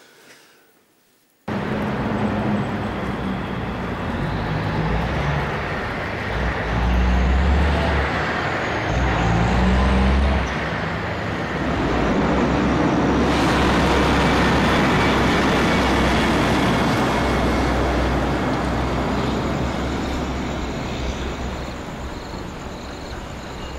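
Heavy truck traffic: a large truck's engine and tyres passing close. The sound cuts in suddenly about a second and a half in and stays loud, the low engine note stepping up and down in pitch.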